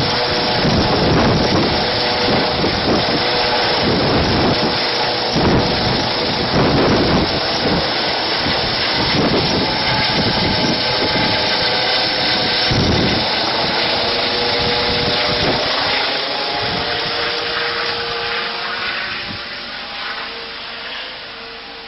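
Eurocopter EC135 twin-turbine helicopter's rotor and turbine noise, loud with a steady whine and uneven low pulsing, fading away over the last several seconds as the helicopter moves off.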